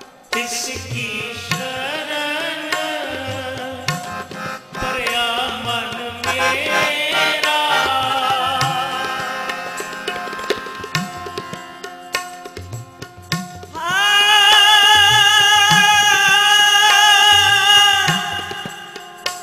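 Sikh kirtan: Nagi harmoniums and tabla accompanying sung hymn singing, the tabla keeping a steady beat. In the last few seconds a voice slides up into a loud, long-held note with a slight waver.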